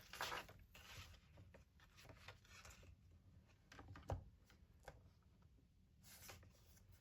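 Faint rubbing and light ticks of paper being turned and cut on a paper trimmer, with one sharper click about four seconds in.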